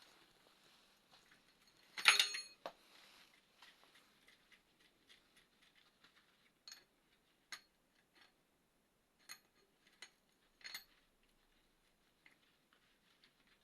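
Metal tools and bicycle parts clinking and clattering during repair work: one loud clatter about two seconds in, then scattered light clinks.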